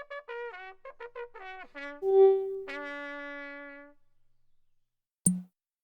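A short trumpet-like brass phrase of quick notes ending on a held note, then a single sharp click near the end.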